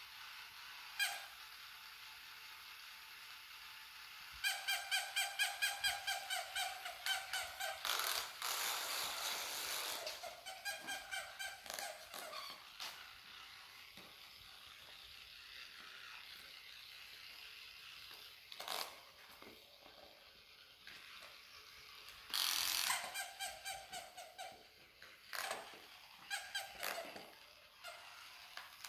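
Mechanical plush toy dog's electronic yapping: several runs of quick high-pitched yips, about four a second, with a burst of rustling about eight seconds in as the dogs grab at it.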